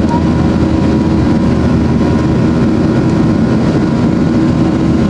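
Boeing 737-800 turbofan engines at climb power after takeoff, heard inside the passenger cabin: a steady, loud drone with a few steady tones running through it.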